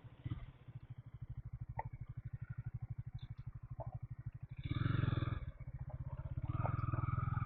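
KTM 250 Duke's single-cylinder engine running at low revs with an even, rapid exhaust pulse. It opens up louder briefly about four and a half seconds in, and again near the end, as the bike accelerates.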